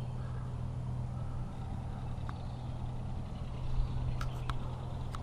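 Steady low hum of an idling engine, with a few sharp clicks about four seconds in and again near the end.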